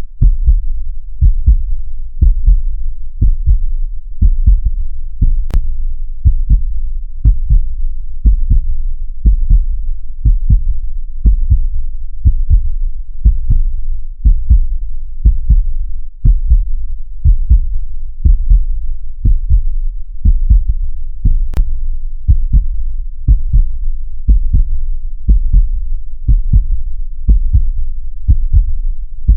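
Human heartbeat beating steadily and low-pitched, a lub-dub double beat about once a second.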